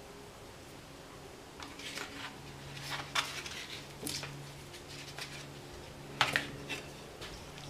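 Cooked rotisserie chicken being shredded by hand and dropped into the pot: soft squishy handling with scattered sharp clicks and taps, starting about a second and a half in, with two louder knocks about three and six seconds in.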